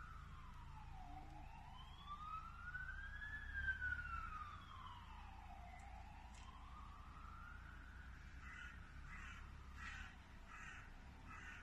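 An ambulance siren wailing slowly up and down, followed near the end by a crow cawing about five times in quick succession.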